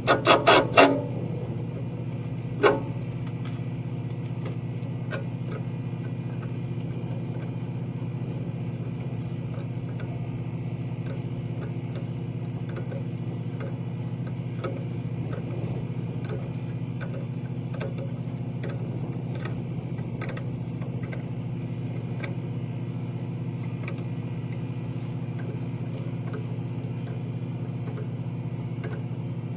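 Metal tools clanking against the truck's battery box and terminals: a quick run of sharp clanks in the first second, another clank a couple of seconds later, then light clinks. Under it, a steady low engine hum from running machinery.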